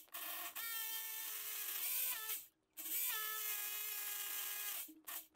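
DEKO rotary hammer drilling into old Soviet-era concrete with a worn, rusty bit: a steady motor whine that runs in two stretches, with a brief break about halfway through.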